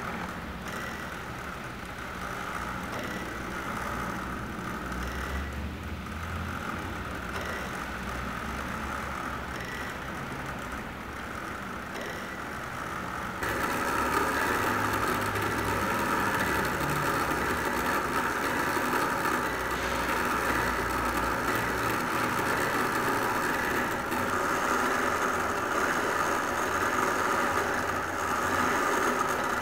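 Clockwork-and-bicycle-wheel mechanism running: gear train, chain sprocket and rubber belt turning a bicycle wheel, a steady mechanical running noise that steps up louder and brighter about halfway through.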